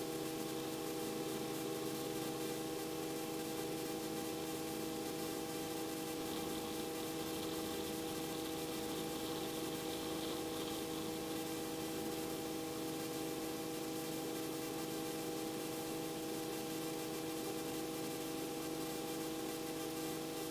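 Robinson R44 helicopter running: a steady hum with several constant tones over an even hiss.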